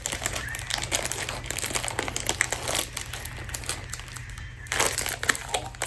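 Plastic snack wrapper crinkling and crackling in the hands as a small individual pack of strawberry sandwich cookies is opened, with a louder rustle near the end.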